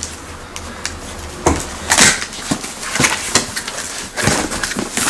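A cardboard shipping box being opened by hand: a series of scrapes and rustles as its flaps are pulled back and cardboard rubs on cardboard.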